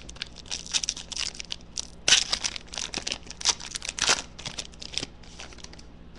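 Foil wrapper of a 2012 Panini Prizm card pack being torn open and crumpled in the hands: a run of sharp crinkling rustles, loudest about two seconds in and again about four seconds in.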